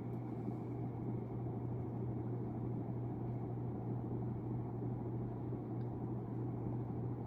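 A 1991 42-inch hugger ceiling fan running steadily at medium speed: an even low motor hum with a soft rush of air.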